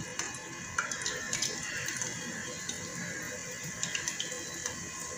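Bread-crumbed prawns deep-frying in hot oil: a steady sizzle with many small, irregular crackles and pops.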